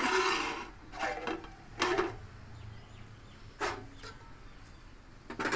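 Flat aluminium lid scraping and knocking against the rim of a large aluminium biryani pot as it is lifted and tilted: several short scrapes, the first the loudest.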